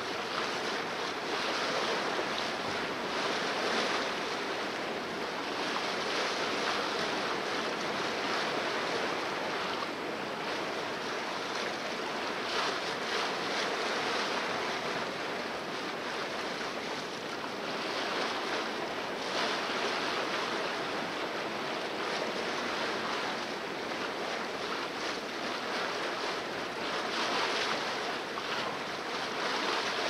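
Sea water rushing and splashing along the hull of a sailboat under way, with wind on the microphone. The rush rises and falls gently as the boat moves through the swell.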